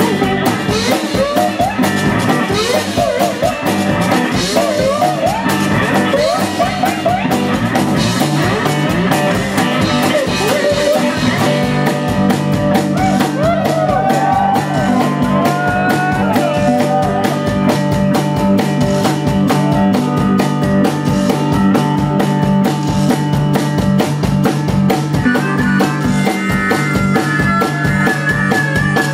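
Live band playing fast, loud blues-rock instrumental: slide guitar with gliding notes over a steady, driving drum beat, with a held high note near the end.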